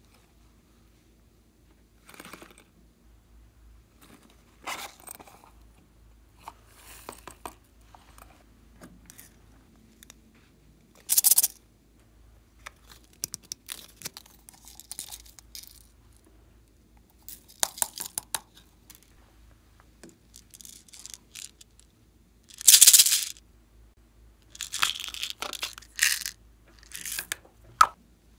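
Sprinkles, glitter and small beads being shaken out of small containers onto slime in a glass bowl: a series of short rattling, pattering pours with scattered clicks, the loudest about a third of the way in and again near the three-quarter mark.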